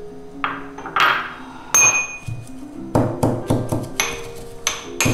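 Mint leaves being pounded in a small steel cup: the tool knocks against the steel with a ringing clink, a few separate strikes, then a quick run of about five a second from about three seconds in.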